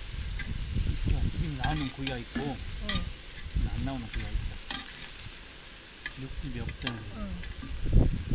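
Pork belly sizzling on a griddle pan, with metal tongs clicking against the pan as the slices are turned.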